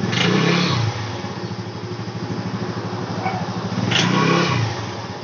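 Yamaha Mio MXi 125 scooter's single-cylinder four-stroke engine running at idle. The throttle is blipped twice, at the start and about four seconds in, and each time the engine revs up briefly and falls back to idle.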